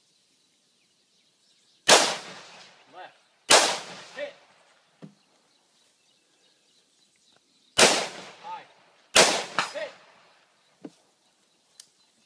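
AR-15 rifle firing four shots in two pairs, the shots in each pair about a second and a half apart and the pairs about four seconds apart, each shot trailing off in an echo.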